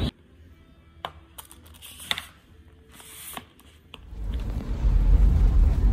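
A few sharp clicks and short crinkles of plastic food packaging being handled: a microwave rice pack and a plastic meal-prep container. About four seconds in, a steady low rumble of a moving car's cabin takes over and grows louder.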